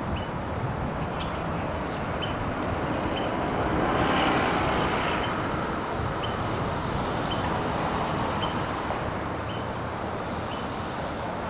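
Steady distant roar of Upper Yosemite Fall at heavy flow, a rushing noise that swells louder for a couple of seconds about four seconds in. A short, faint high tick repeats roughly once a second over it.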